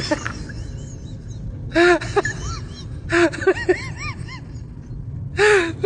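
A man's wordless vocal sounds, coming in about four short bursts, each a breathy onset followed by quick pitched sounds that rise and fall.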